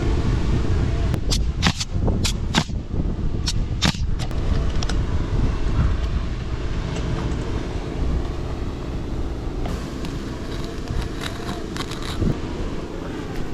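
Wind rumbling hard on the microphone, with a quick run of sharp knocks in the first few seconds and fainter knocks later: nailing on an asphalt-shingle roof.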